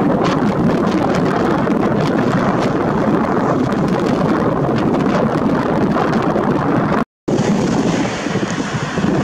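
Airbus A320-214's CFM56 jet engines rumbling steadily during its landing rollout, mixed with gusty wind on the microphone. About seven seconds in, the sound drops out for a moment at an edit, then the noise goes on a little thinner.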